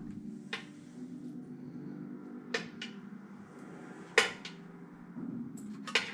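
Sharp clicks and clinks of hard computer parts being handled and fitted, about seven in all, the loudest a little past the middle and a close pair near the end, over a steady low hum.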